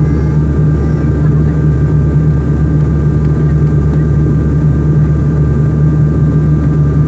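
Airliner jet engines running, a loud steady drone with a low hum and two thin steady higher tones that hold unchanged.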